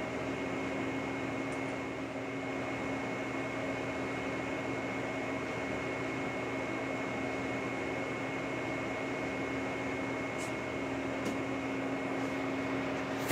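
Lucas model 41 horizontal boring mill running, turning a boring bar through an excavator quick-coupler's pin bore: a steady machine hum with a constant whine. A couple of faint light clicks come near the end.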